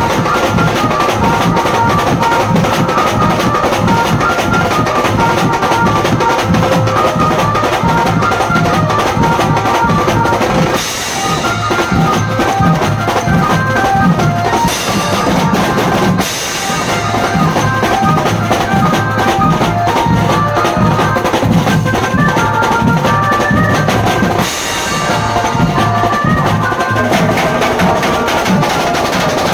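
Loud drum-led band music: fast, heavy drumming on bass drum and snare under a melodic lead line, with short breaks about 11, 16 and 24 seconds in.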